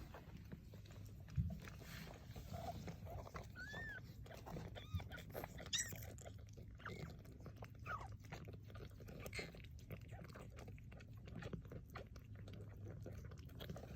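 Faint, high squeaky mews of a newborn kitten, several short calls from about four to eight seconds in, over soft wet chewing and licking sounds from the mother cat cleaning up after the birth.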